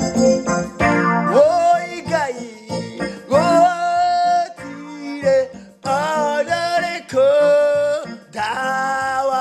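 Worship music: a voice singing long, held phrases that bend in pitch, over steady instrumental accompaniment.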